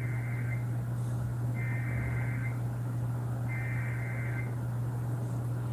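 Emergency Alert System SAME header heard over radio: three bursts of digital data tones, each about a second long and about a second apart, opening the next flash flood warning. A steady low hum runs underneath.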